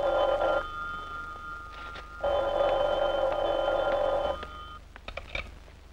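Desk telephone ringing in two long rings with a short pause between them, followed by a few light clicks near the end.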